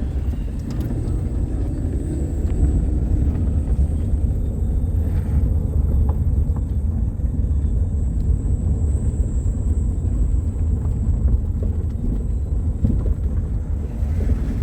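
Steady low rumble of a vehicle driving along a road.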